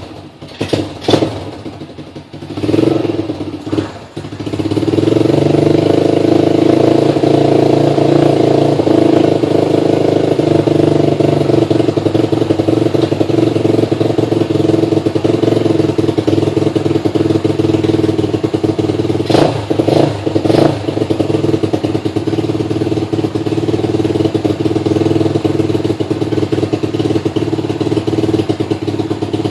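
Apollo ADR 125 pit bike's 125 cc single-cylinder four-stroke engine being started: a few sharp knocks and short sputters, then it catches about four seconds in and runs steadily. A few sharp knocks come around twenty seconds in.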